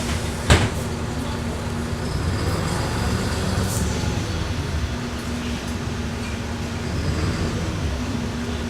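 City bus running, heard from inside the passenger cabin: a steady drone of engine and road noise with a low hum, and one sharp knock about half a second in.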